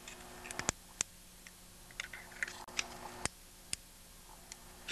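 Flat screwdriver prying and twisting between an old Tecumseh ignition coil and its metal bracket on the magneto point plate: scattered sharp metal clicks and small scrapes as the tool works the stiff coil loose.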